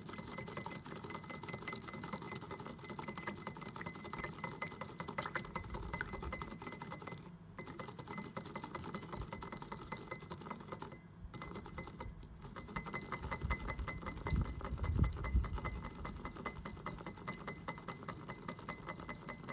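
Purple silicone whisk beating an olive-oil and lime-juice vinaigrette in a small glass bowl: a fast, steady ticking of the wires against the glass. It pauses briefly twice, and a few heavier knocks come about three-quarters of the way through.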